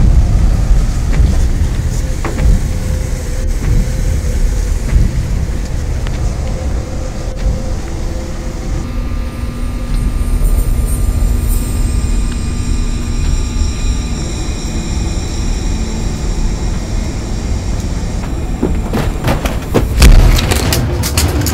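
Dark, bass-heavy film-score drone with a low rumble underneath and sustained high synth tones layered in partway through. About twenty seconds in comes a loud hit with a cluster of sharp strikes.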